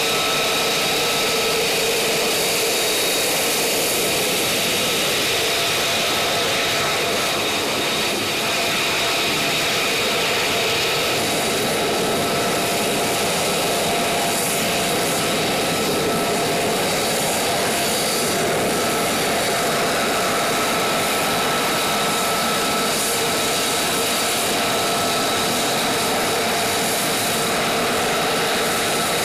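F-35A Lightning II's Pratt & Whitney F135 turbofan engine idling on the ground: a steady rush of jet noise with constant high whining tones from the turbine.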